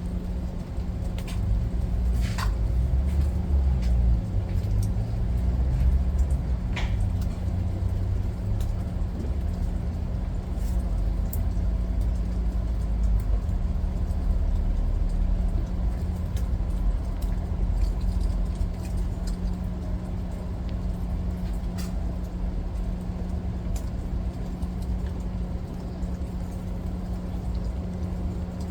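Rain falling, with scattered sharp ticks of drops landing close by over a steady low rumble and a constant low hum.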